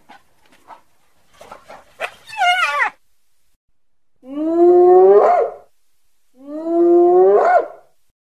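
Spotted hyena whooping: two long calls, each rising in pitch and sweeping sharply upward at the end, after a shorter wavering call about two seconds in.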